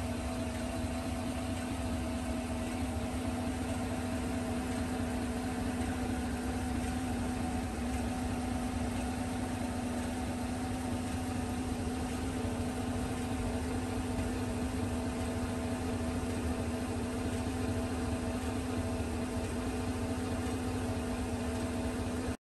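Chevrolet Silverado pickup's engine idling, a steady hum with one clear low tone, heard close to the front of the truck; it cuts off suddenly near the end.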